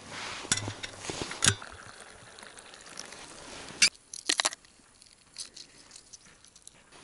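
Rustling and clicking of a plastic food bag and containers being handled, then a sharp crack and a quick cluster of clicks about four seconds in as a boiled egg's shell is cracked, followed by faint small crackles as the shell is peeled off.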